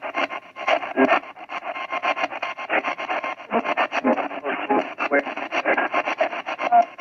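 A modified AM/FM radio used as a spirit box, sweeping rapidly through stations: a thin, narrow-band stream of static and broken radio voice fragments, chopped many times a second. The operator hears words in it such as "they... that's it", "it was my choice" and "as a test".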